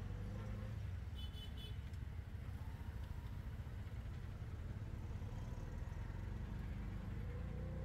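Steady low rumble of a running car engine or nearby traffic, with a brief faint high chirp about a second in.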